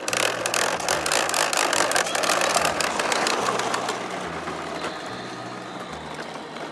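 Plastic toy lawn mowers pushed over concrete and asphalt: a dense rattle of rapid clicks from their plastic wheels and mechanisms, starting abruptly, loudest in the first few seconds, then easing off.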